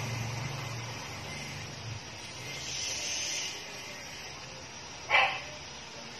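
A dog barks once, briefly, about five seconds in, over faint background noise.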